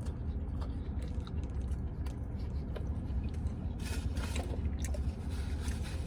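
A person biting and chewing plant-based buffalo wings close to the microphone, with small wet clicks and crunches scattered through, a short run of crackly noises about four seconds in, over a steady low hum.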